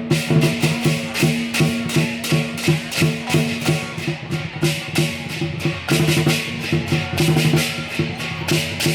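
Loud, lively music with rapid, continuous drum and cymbal strikes over held low notes.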